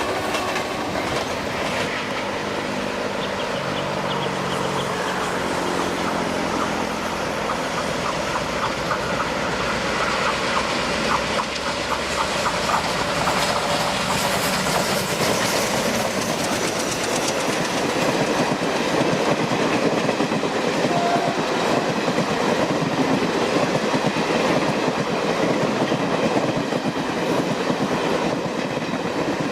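A diesel-hauled train running past, the locomotive's engine hum heard over the first few seconds, then the wheels clattering steadily over the rail joints as the coaches go by.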